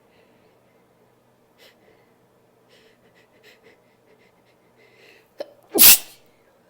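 A woman sniffling softly several times, then a quick sharp intake of breath about five and a half seconds in, followed by one loud sneeze near the end.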